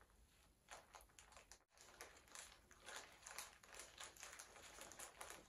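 Faint, irregular rustling and crackling of baking paper as a cooled Swiss roll sponge is unrolled from it by hand.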